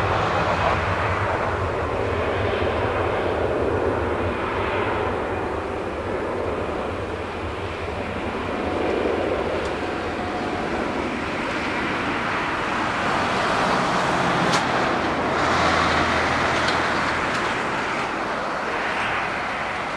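Airbus A320 jet engines at takeoff thrust as the airliner accelerates down the runway: a continuous rushing jet noise with a low rumble beneath, swelling and easing gently.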